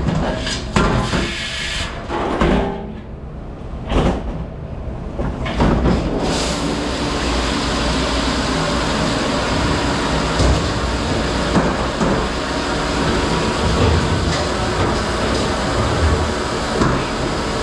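Commercial dish-room noise: several clatters of dishware and racks in the first few seconds, then a steady rush of running water and machinery with occasional knocks.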